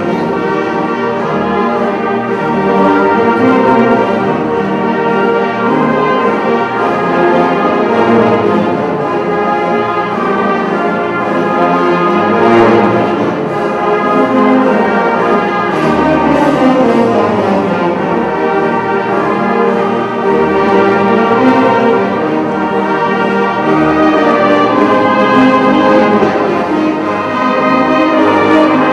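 Brass band playing music of held chords without a break.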